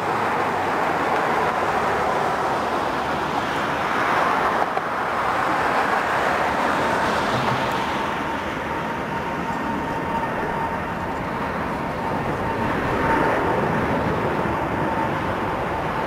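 Jet engines of an Airbus A320neo running as it rolls along the runway: a steady rushing noise, with a thin high whine held from about six seconds in until near the end.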